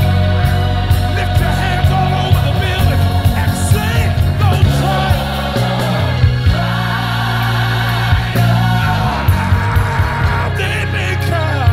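Live worship band and singers performing a praise song, with a steady bass line, regular drum hits and voices singing.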